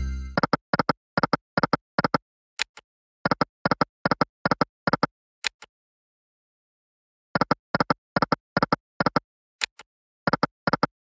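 Online slot machine game sound effects: quick runs of short clicks as the five reels stop one after another on each spin, with a silent pause of a couple of seconds in the middle. The tail of a chiming tune dies away at the very start.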